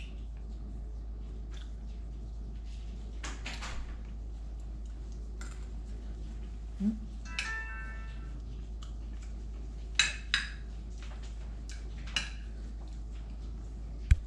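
Cutlery clinking and scraping on a plate as someone eats, a few scattered clinks with the sharpest near the end, and a brief squeak about seven and a half seconds in, over a steady low hum.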